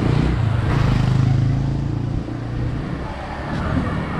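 Motor vehicle engine running close by with a steady low drone, loudest for the first two seconds and then easing off.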